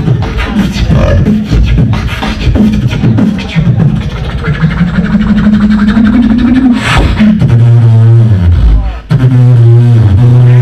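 Live beatboxing into a handheld microphone through a PA: quick mouth-percussion kicks and snares over a voiced bass line. About seven seconds in a sharp hit cuts through, then a held low droning bass takes over, stepping in pitch, with a brief break just before the ninth second.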